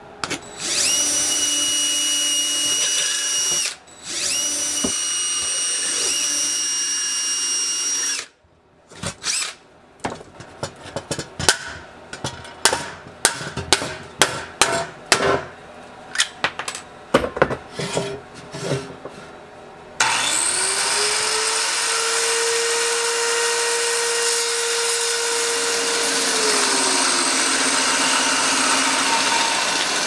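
A power drill runs twice with a steady high whine, each run about three to four seconds long. Then come about ten seconds of irregular sharp clicks and taps. Two-thirds of the way in a bandsaw starts up, rising to speed, and runs steadily through walnut.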